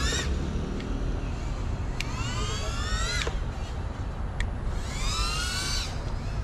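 FPV quadcopter's motors whining, rising in pitch twice as the throttle is pushed up, each rise cut off sharply. A steady low rumble runs underneath.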